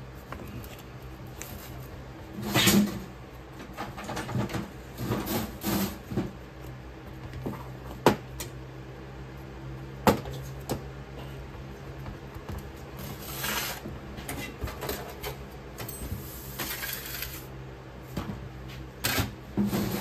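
Cast metal mold halves and wooden boards being handled and set down on a stainless-steel worktable: scattered knocks and metallic clinks, with a few short scraping rustles, over a steady low hum.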